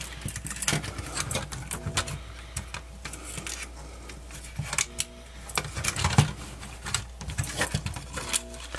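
Irregular small clicks, taps and rattles of a cassette player's plastic casing and circuit board being handled and turned over.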